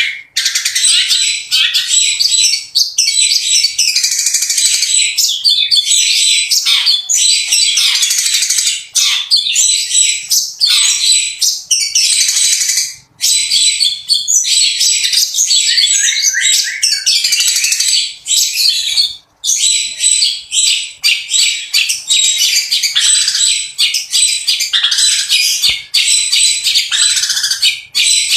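Long-tailed shrike (cendet) singing in a fast, harsh, chattering stream of scratchy notes and quick rolls, filled with mimicked calls of other birds, with only a couple of brief breaks.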